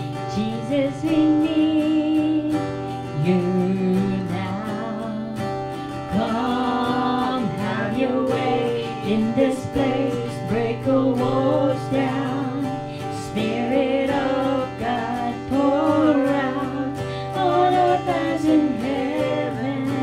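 A woman singing a slow song into a handheld microphone, amplified through an Alto Professional Trouper portable PA speaker, with an acoustic guitar strummed along.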